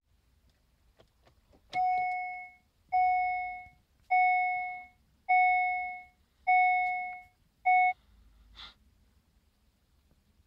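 Daewoo Lanos dashboard warning chime ringing six times, about a second apart, each ding fading away and the last one cut short, sounding while the seatbelt warning light is lit: the seatbelt reminder after the ignition is switched on. A few faint clicks come just before the first ding.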